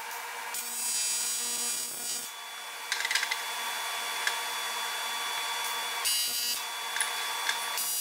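AC TIG welding arc on aluminium buzzing in short tack-welding bursts: one about a second and a half long starting about half a second in, a brief one about six seconds in, and another starting near the end. A few light clicks of the parts being handled come between them, about three seconds in.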